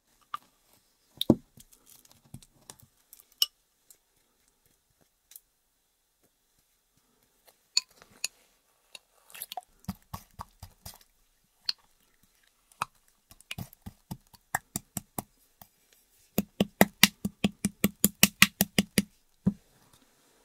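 Thick clear slime being poked and worked with a small plastic spoon and fingers in glass bowls, making sticky clicks and taps. Near the end comes a fast, even run of about five clicks a second, lasting a couple of seconds.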